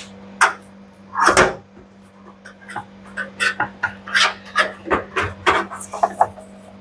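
Irregular metallic clicks, clanks and knocks as the steel suspension springs of a front-loading washing machine's tub are hooked onto the cabinet, the loudest knock about a second in.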